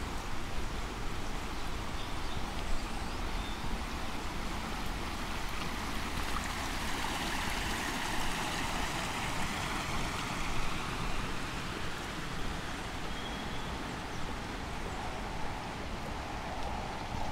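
Steady outdoor rushing noise that swells for several seconds in the middle.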